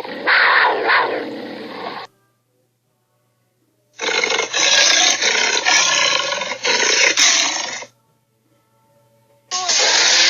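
Three separate clips of a cartoon sharptooth dinosaur's roaring screech: one at the start lasting about two seconds, a longer one in the middle lasting about four seconds, and a short one starting near the end. Each starts and cuts off abruptly.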